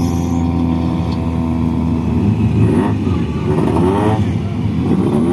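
Off-road buggy engines idling steadily, then revved up and down a few times from about halfway through.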